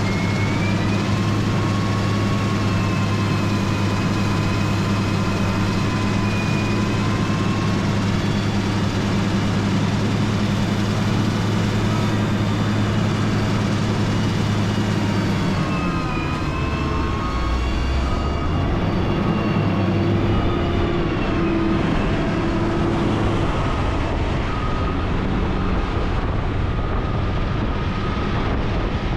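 Motor grader's diesel engine running under steady load, with a thin wavering whine above it. About halfway through the engine note drops and shifts as the load or revs change.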